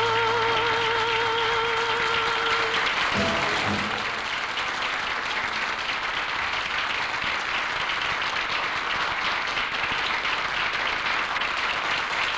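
A woman singing, holding the song's last note with a wide vibrato over the dance band's accompaniment. About three seconds in the band closes with a short final chord. An audience then applauds steadily.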